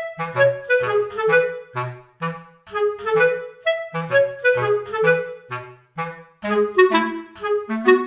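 Background music: a bouncy instrumental tune of short, separated notes over a lower bass line, at a steady quick pace.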